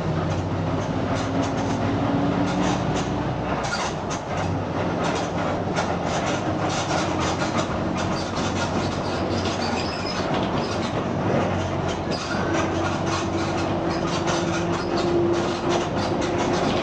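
Mercedes-Benz OF 1721 BlueTec 5 bus driving at medium engine revs, with its differential growling. A steady drive tone shifts in pitch, and a held whine rises slightly from about twelve seconds in. Frequent clicks and rattles run over it.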